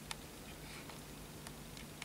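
Small brass Hero steam engine (aeolipile) running, a faint steady hiss with a few soft ticks as its ball spins on the steam jets.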